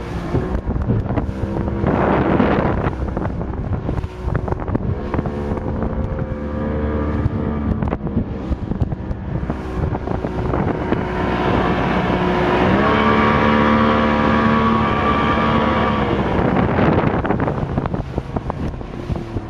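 Motorboat engine running steadily, its pitch rising about two-thirds of the way through and easing back near the end, with wind noise on the microphone.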